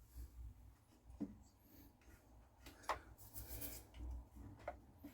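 Faint scattered clicks and rubbing of hands handling chainsaw parts during reassembly, over a steady low hum.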